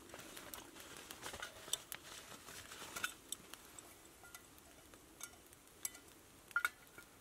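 Light metallic clinks and scrapes of a small metal camping mug and spoon being handled and stirred, scattered sharp clinks spread through, over soft rustling in the first few seconds.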